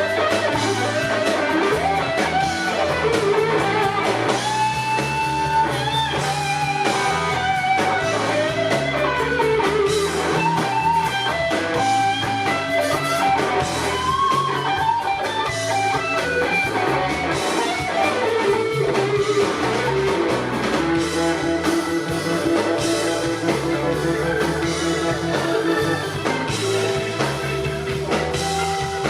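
Live blues-rock band playing: a lead electric guitar line with bending notes over bass and drum kit, with no singing.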